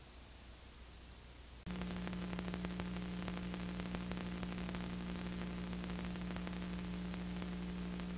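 Recording noise on a silent home-movie transfer: faint hiss, then about two seconds in a steady electrical buzz with hiss starts abruptly and holds at one pitch.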